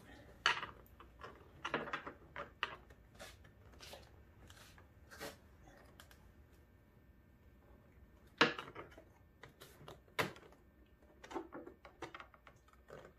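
Scattered clicks and knocks of hand tools and screws being worked against a snowmobile's plastic body panel. A few knocks stand out louder: one about half a second in and two a little past the middle.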